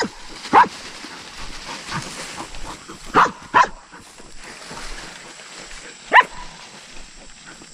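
Hunting dog barking on the chase of a quail: about five short, sharp barks, spread out, with two close together a little past three seconds in.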